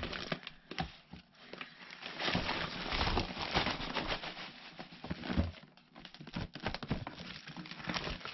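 A woven, tarp-like plastic bag rustling and crinkling as it is shaken and upended. Peat bedding spills out of it with a patter onto a plastic bin lid.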